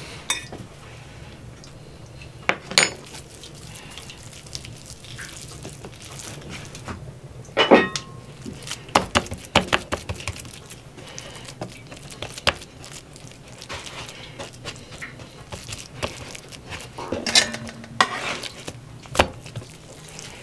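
Kitchen clatter: scattered short clinks and knocks of dishes and utensils on a wooden table, with quiet gaps between them, over a faint steady low hum.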